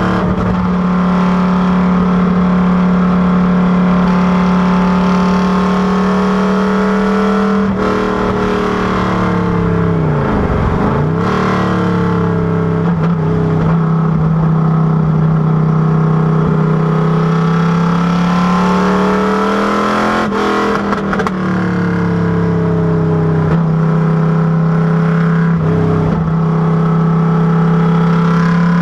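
FFR Cobra Daytona Coupé's V8 engine running hard under load. Its pitch climbs slowly and drops sharply several times as it changes gear, with one deep dip and recovery about ten seconds in.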